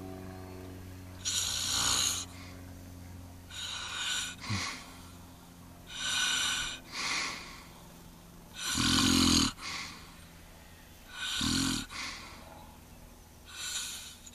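A sleeping man snoring: a string of noisy, hissing breaths every second or two, with the two loudest past the middle deep and rasping. A steady low hum runs underneath.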